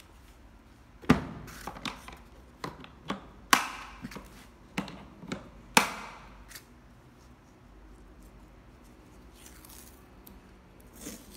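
Hard plastic tool case being shut: a string of sharp plastic clacks and knocks as the lid comes down and the latches snap closed, the loudest about a second in. Near the end comes a softer rasp of tape being pulled off a roll.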